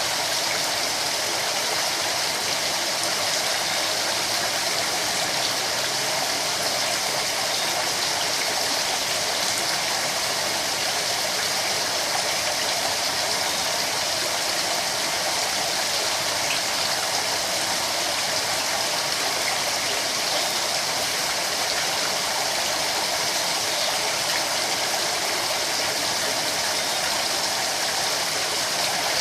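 Steady rush of running water splashing into a koi pond.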